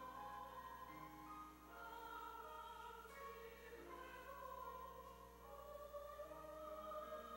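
Mixed church choir singing a Korean hymn in faint, held chords that change every second or so.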